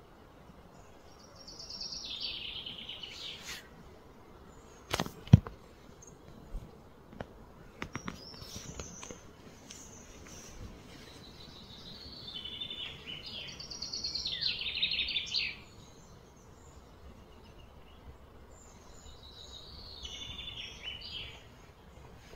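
Bird song: three phrases of rapid, high trilled notes over quiet outdoor ambience. Sharp clicks come between the first two phrases; the loudest is a pair about five seconds in, and a few fainter ones follow.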